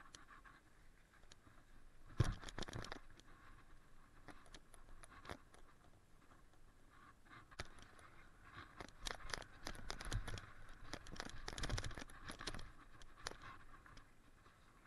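Mountain bike descending a dirt forest trail: faint rolling crunch of tyres on dirt and gravel with scattered clicks and knocks from the bike rattling over bumps, a sharper knock about two seconds in and busier knocking in the second half.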